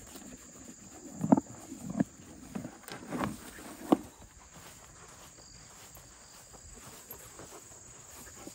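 A horse eating from a plastic bucket: a handful of short knocks and thumps in the first four seconds, over a steady chirring of insects.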